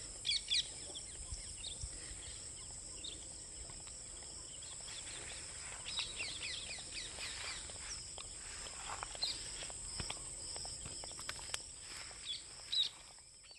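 Birds chirping in short downward-sweeping calls over a steady, high-pitched insect drone, with a few sharp clicks. The sound fades out near the end.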